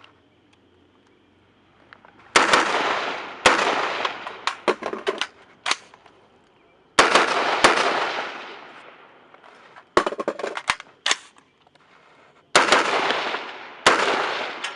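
Stag Arms AR-15 rifle shots in pairs about a second apart, each trailing a long echo, with fainter, quicker sharp cracks in between.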